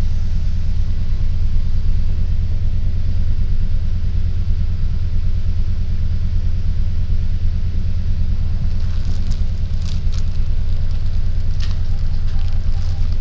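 City bus engine running, heard from inside the bus as a steady low rumble. Toward the end there are a few light clicks and a short run of evenly spaced electronic beeps.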